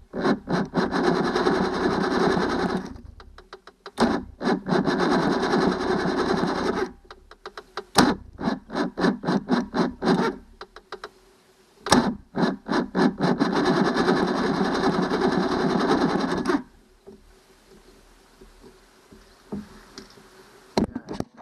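Johnson 90 hp V4 two-stroke outboard being turned over by its electric starter, with the choke on, in long cranks of about three to five seconds and a run of short stabs in between, with a steady pulsing rhythm. The engine never fires: it won't start.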